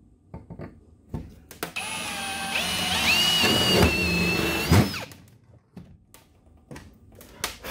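Cordless drill boring a rivet hole through a metal bracket into the jon boat's diamond-plate deck: about three seconds of motor whine, starting a couple of seconds in, rising in pitch partway through and stopping abruptly with a knock. Light clicks and handling knocks around it as the drill is picked up and set down.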